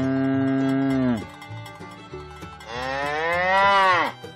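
Cow mooing twice: a long, low moo that breaks off about a second in, then a second moo that rises and falls away near the end.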